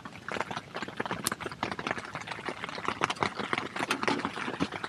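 Rain pattering steadily on the canvas of a teepee tent, heard from inside, with the crackle of a small wood stove fire mixed in: a dense, irregular stream of small taps and pops.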